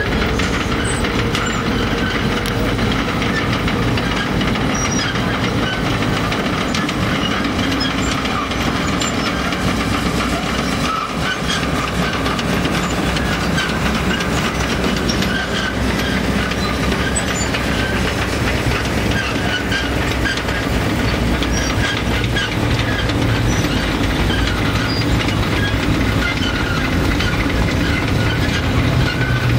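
Tracked tank on the move: engine running steadily under a continuous clatter of its metal tracks.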